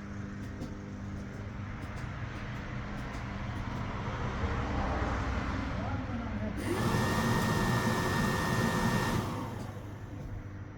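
Truck's heater blower fan running, with air rushing through the vents and building over a few seconds. About six and a half seconds in it switches to a louder rush with a steady whistle, which falls away about nine seconds in. The replacement blower motor gives only its high speed; the lower fan speeds don't work.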